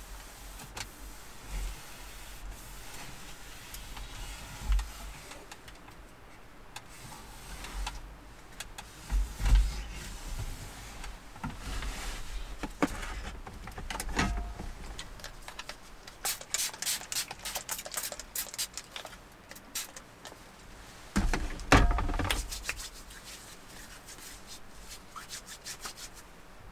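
A person moving about at close range, with scattered knocks and thumps and a quick run of short rubbing strokes in the middle. Hands are rubbed together against the cold near the end.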